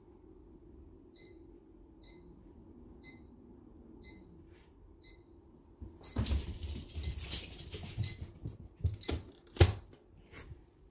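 Alarm clock beeping about once a second, a short high electronic beep, starting about a second in. From about six seconds in there is loud rustling and knocking over the beeps, and the beeping stops near nine seconds, followed by one sharp knock.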